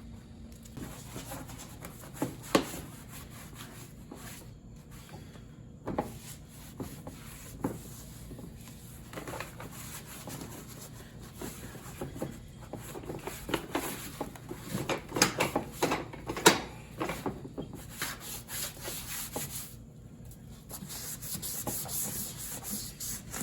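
Hand scrubbing and rubbing on the lawn tractor's body panels, with irregular knocks and clicks, and a steadier hissing stretch near the end.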